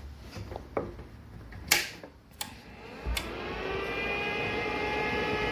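A few light clicks and knocks, then about three seconds in a thump as the Riland 200SE inverter stick welder is switched on, and its large cooling fan spins up: a whirring whine that rises in pitch and then holds steady.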